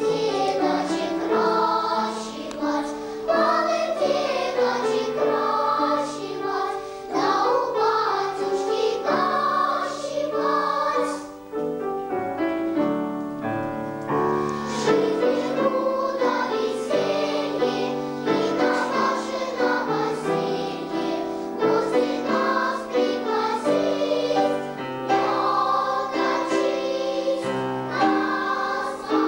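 Children's choir singing a melody in continuous phrases, with a brief drop in loudness about eleven seconds in.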